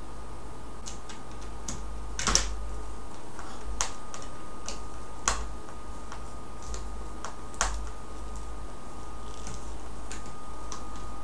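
Hand screwdriver driving a large screw into a furniture board, giving irregular sharp clicks and creaks as the screw is turned in. The loudest comes about two seconds in.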